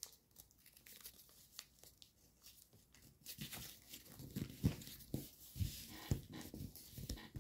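Foil-backed paper crinkling and rustling as it is folded and creased by hand, starting about three seconds in, with a few soft taps of fingers pressing on it.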